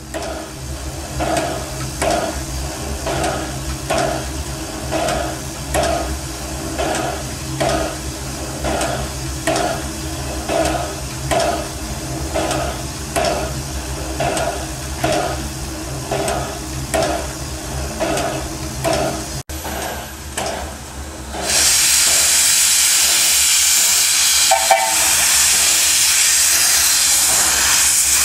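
Narrow-gauge steam locomotive working, its exhaust chuffing evenly about one and a half beats a second over a low rumble. After a break about two-thirds in, a loud steady hiss of escaping steam takes over.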